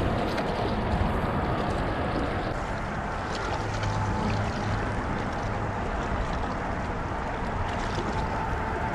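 Small waves washing and lapping against shoreline rocks, a steady wash of water.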